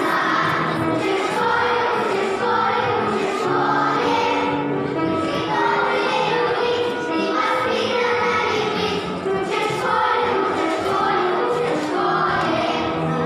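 A group of young children singing a song together, with low instrumental accompaniment under the voices.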